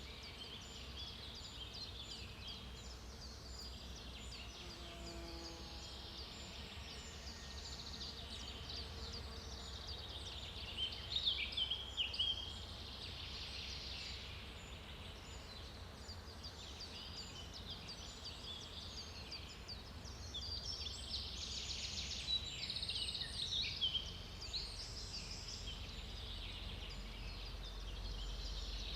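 Daytime forest ambience: many small birds chirping and singing at once, with two louder, busier flurries of song, one about a third of the way in and one past two thirds, over a steady low rumble.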